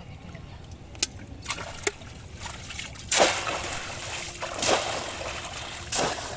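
Splashing in shallow muddy water: a couple of small clicks, then three loud splashes about a second and a half apart in the second half, the first the loudest.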